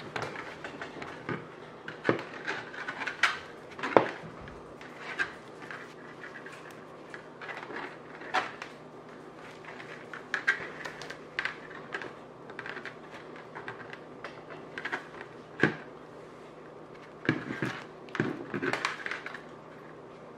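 Handling noise from gloved hands working a knot in heavy 800 lb monofilament leader: scattered sharp clicks and short rustles of the stiff line and gloves against a tabletop, loudest about four seconds in, with a cluster near the end.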